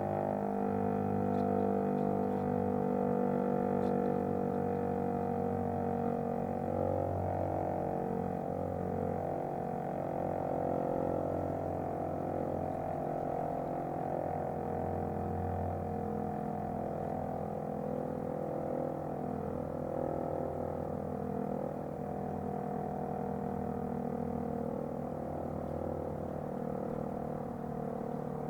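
Fire-station motor siren sounding the noon time signal, holding a steady tone with several pitches sounding together, a little quieter near the end.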